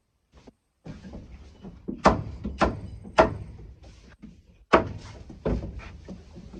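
Five hard thuds in two quick groups, three and then two, over faint rustling.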